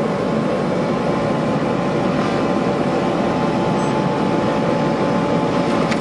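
Ammann 12-tonne road roller's diesel engine running steadily as the roller creeps forward in vibration mode, a continuous even drone with no impacts.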